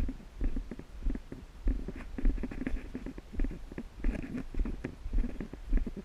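Muffled, irregular thumps of footsteps, with rustling and light clicks from clothing and gear rubbing against a body-mounted action camera.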